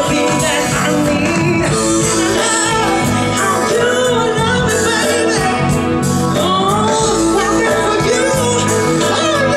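Live band playing an instrumental stretch of a pop song, with a wavering lead melody over a steady bass line and chords.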